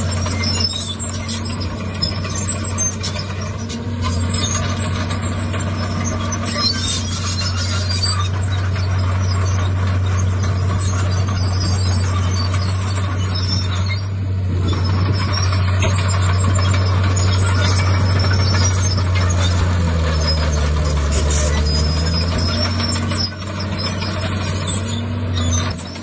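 Diesel engine of a Komatsu D51PX crawler bulldozer running steadily under load, a deep continuous hum that drops in pitch for a couple of seconds about twenty seconds in.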